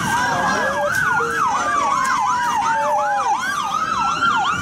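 A siren in a fast yelp, its pitch sweeping up and down about three times a second, over a second siren tone that falls slowly.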